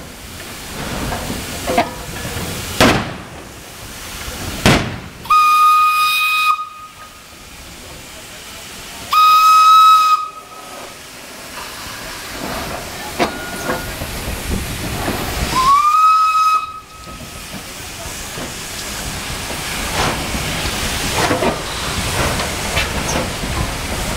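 Baldwin-built AWE-class steam locomotive sounding its steam whistle three times, blasts of about a second each on one steady note, the third sliding up into pitch as it starts. Steam hisses in between, with a few sharp knocks, and a run of sharp exhaust beats builds near the end as the locomotive gets moving.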